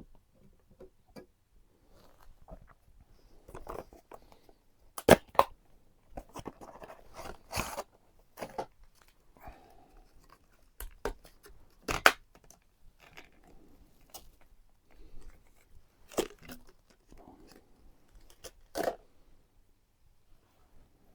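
Hand handling of PC parts and their packaging: crinkling and tearing, broken by about five sharp clicks.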